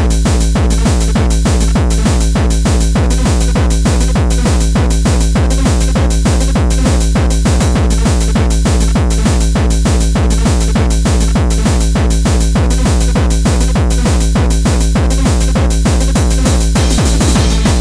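Gabber hardcore techno at about 200 bpm, a loud, fast, steady kick drum driving it.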